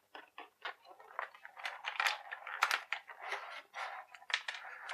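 Clear plastic blister tray crackling and clicking as small plastic toy accessories are pried out of it: an irregular run of short clicks and crinkles.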